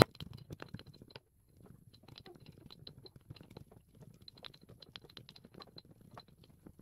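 Stone pestle crushing garlic cloves and ginger in a stone mortar: quick, faint, irregular taps and crunches, with a brief pause about a second in.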